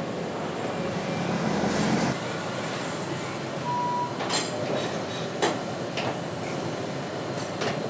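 Steady hum of automated engine-assembly machinery on a factory line. There is a short electronic beep about four seconds in, and several sharp mechanical clicks follow through the second half.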